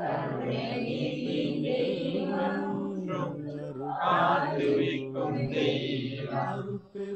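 A group of voices chanting a line of a Tamil devotional hymn together in unison, answering the leader's line, over a steady low drone. The singing dips briefly near the end.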